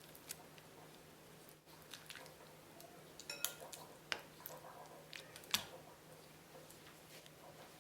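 Kitchen utensils clinking and knocking against a bowl during food preparation: scattered light clicks, a ringing clink a bit over three seconds in and a sharper knock about five and a half seconds in, over a faint steady hum.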